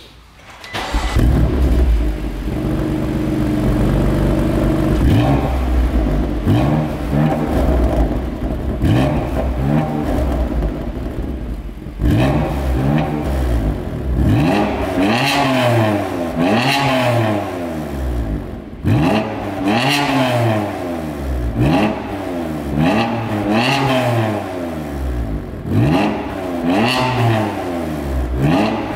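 BMW M3 (F80) twin-turbo inline-six, heard through its aftermarket Akrapovic exhaust, starting up about a second in with a loud flare and then idling. From about halfway on it is revved in repeated blips, about one every second and a half, each rising and falling in pitch.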